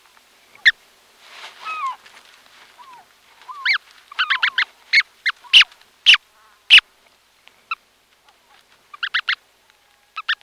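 Brant goslings calling from inside their eggs, heard close up: short, sharp peeping calls, some sliding down in pitch, coming in a busy run in the middle and in quick clusters of three or four near the end, with soft rustling movement early on.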